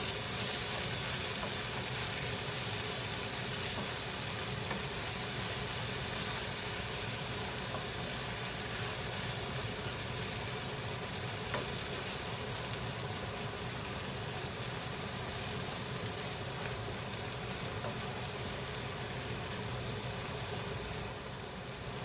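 Chopped tomatoes sizzling in oil in a skillet over a gas flame while being stirred with a wooden spatula: a steady frying hiss that eases slightly near the end.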